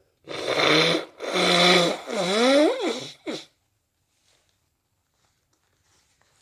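A person with a cold blowing a congested nose: three long blows of about a second each in quick succession, then a short one, the third squeaking up and down in pitch.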